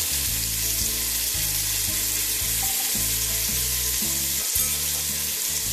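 Washed basmati rice sizzling in hot ghee with fried onions and whole spices in a pressure cooker, turned over with a wooden spatula; a steady frying hiss over a light background music bass line.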